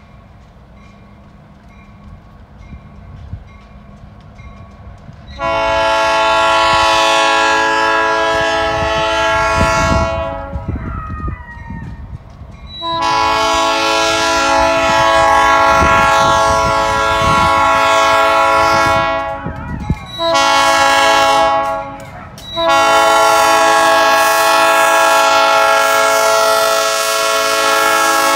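Diesel freight locomotive's multi-chime air horn blowing the grade-crossing signal: two long blasts, a short one, then a long one. The first few seconds hold only the low rumble of the approaching train, which carries on beneath the horn.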